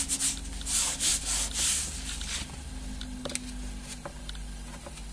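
Hands rubbing brown packing tape down onto cardboard: several swishing strokes in the first half, then quieter handling with a few light clicks.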